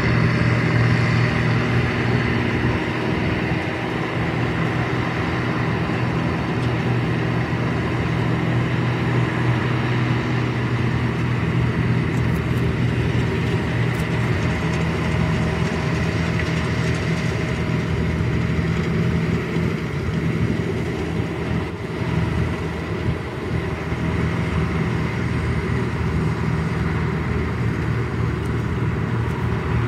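Bizon Z056 combine harvester's six-cylinder naturally aspirated diesel engine (Leyland SW400) running at a steady, loud pace, with a slight dip in level about 22 s in.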